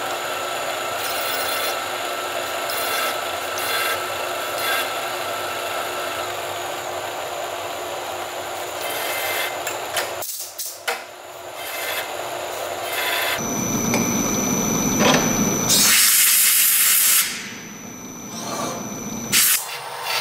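Milling machine cutter facing a flat metal plate: a steady grinding cutting noise that drops briefly about ten seconds in, then grows louder and harsher for a few seconds with a high whine over it.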